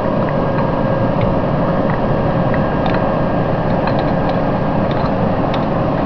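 Steady mechanical hum with a faint steady tone, and scattered small metal clicks from hand-tightening the T-handle screws at the back of a direct shear box.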